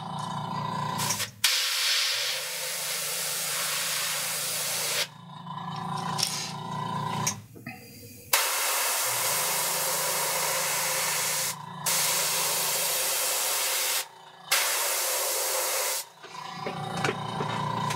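Airbrush spraying paint in several bursts of one to four seconds, a steady hiss that starts and stops abruptly, with short gaps between.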